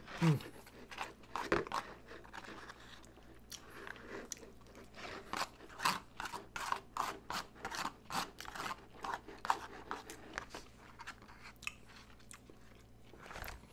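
Close-up chewing of a mouthful of loco moco: hamburger patty, rice and gravy. It comes as a run of short, wet mouth clicks, about one or two a second.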